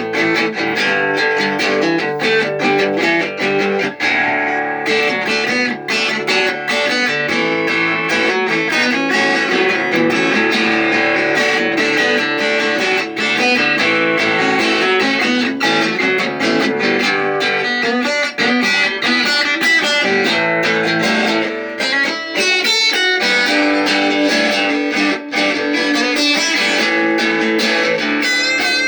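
Guitar music, with plucked and strummed strings.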